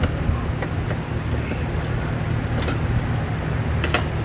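Steady low rumble of background machinery, with a few short sharp clicks and knocks of shifter parts being handled and fitted back together.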